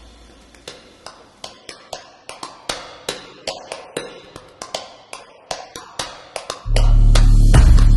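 Music track: a run of sharp, even ticks at about four a second, then near the end the full track comes in loud with a heavy, steady bass.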